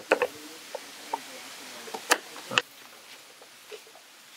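Knife chopping carrots on a cutting board: irregular sharp knocks of the blade striking the board, three in quick succession at the start and a few more spaced out after, the loudest two about two seconds in.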